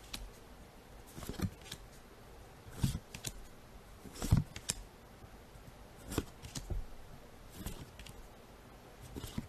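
Pokémon trading cards handled in the hands: short swishes and flicks of card against card as each card is slid off the front of the stack. The sounds come in small clusters about every one and a half seconds.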